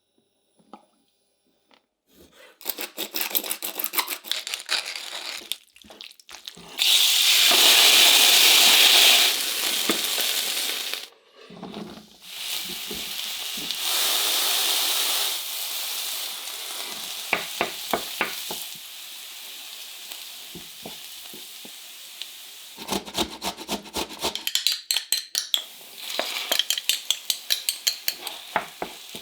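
Food frying in a hot pan: sizzling that swells suddenly and loudly about seven seconds in, then settles to a steady sizzle. Between these, a spoon or spatula stirs and clicks quickly against the pan.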